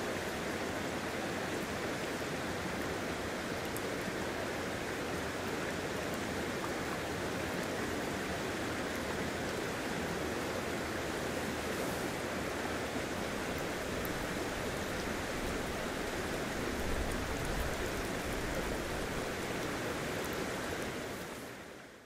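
A river rushing steadily, an even hiss of flowing water that fades out at the end.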